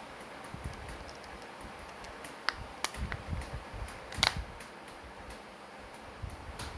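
Small plastic clicks and handling noise from a smart key remote being worked apart or snapped together by hand. There are a few sharp clicks in the middle, the loudest about four seconds in.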